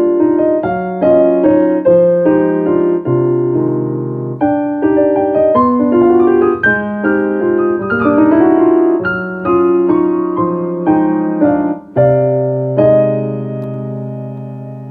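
Solo piano playing a slow melody over chords, with a quick rising run of notes about eight seconds in and a long held chord near the end that slowly fades.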